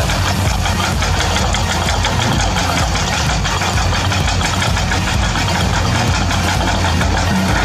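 Remote-control toy excavator running: a steady mechanical whir with a fast, even rattle of its motors and gears.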